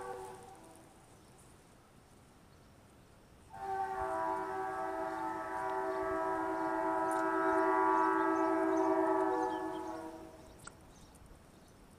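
BNSF diesel locomotive's air horn: a short blast at the start, then one long blast of several tones sounding together as a chord, lasting about six seconds from about three and a half seconds in.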